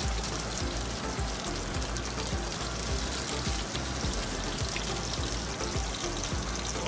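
Breaded fish fillets frying in shallow oil in a skillet, a steady sizzle with fine crackling and popping.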